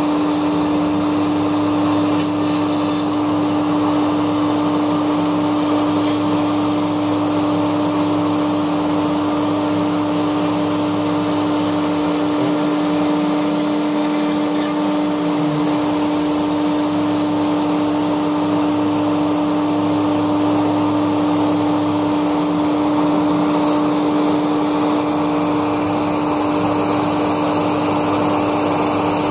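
Laguna SmartShop II CNC router running and cutting foam: a steady, loud spindle whine over a constant rush of noise. A lower hum underneath shifts and wavers about halfway through, then settles again.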